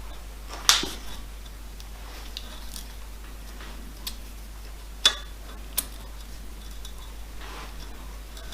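A few sharp metal clinks and knocks of a tool on a bolt being worked loose on a milling machine's saddle, two of them louder with a short ring: one about a second in and one about five seconds in.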